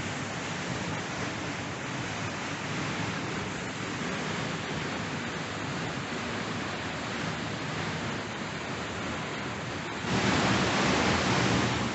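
Waterfall rushing in a steady roar of falling water. It grows louder about ten seconds in.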